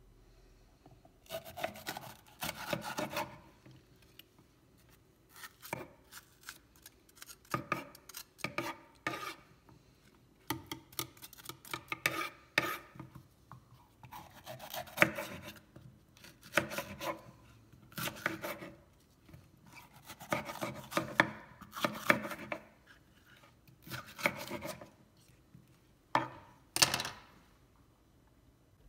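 Kitchen knife cutting a red bell pepper on a wooden cutting board: irregular runs of crisp slicing strokes and knocks of the blade on the board, with short pauses between.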